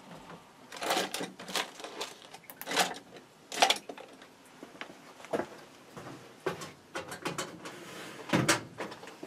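Irregular clicks, taps and rustles of small parts and papers being handled on a tabletop, each a short separate knock with gaps of about a second between them.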